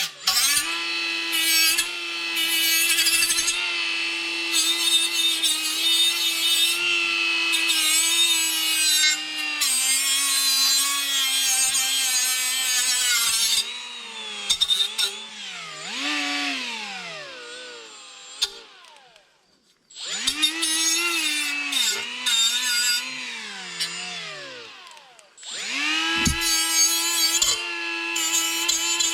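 Electric angle grinder running on car-body sheet metal, its whine dipping in pitch as it bears on the work. It is released and spins down with a falling whine twice, each time started up again.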